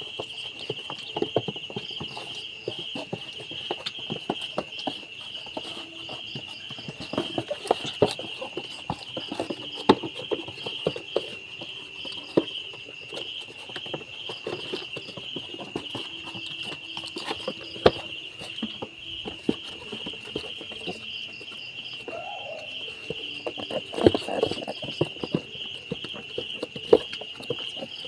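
Steady high-pitched insect chirping with a fast, even pulse, over scattered sharp clicks and knocks of a newborn piglet being handled close to the microphone.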